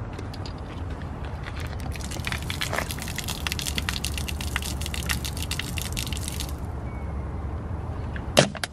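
Water poured from a plastic bottle splashing onto asphalt: a crackling spatter that starts about two seconds in and stops sharply after about six and a half seconds. A steady low rumble runs underneath, and a sharp click comes near the end.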